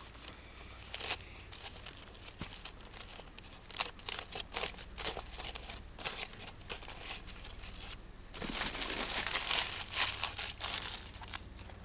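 Aluminium foil crinkling and crackling as a foil-wrapped baked potato is unwrapped by hand, in scattered crackles with a louder, denser spell of crumpling about two-thirds of the way in.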